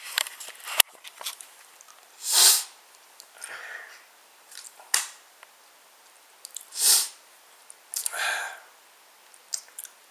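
A person sneezing and sniffing, several short breathy bursts in a row, the two loudest about two and a half and seven seconds in. A sharp click sounds just under a second in.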